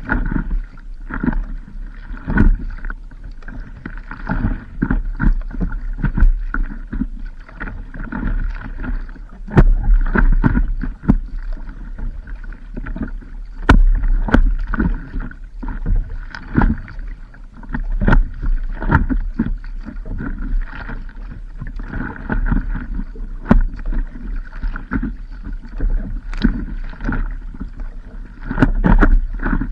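Water slapping and splashing against a stand-up paddleboard while paddling, with irregular sharp knocks and splashes. Wind rumbles on the microphone throughout.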